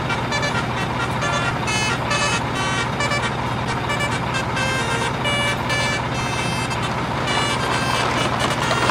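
A steady low engine-like hum under a quick run of short, high electronic beeping notes, a few every second, forming a tune.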